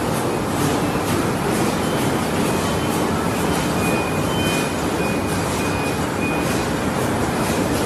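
Automatic poop-bag-on-roll making machine running: a loud, steady mechanical noise with faint repeated clicks. A few short, high beeps sound from about four to six and a half seconds in.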